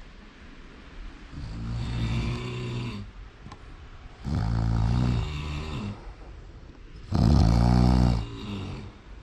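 Snoring: three long snores about three seconds apart, the last one the loudest.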